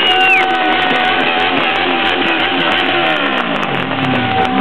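Loud rock music with electric guitar.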